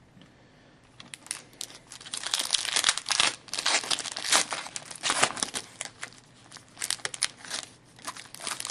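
A foil hockey card pack wrapper being torn open and crinkled by hand, starting about a second in and continuing in irregular rustling bursts.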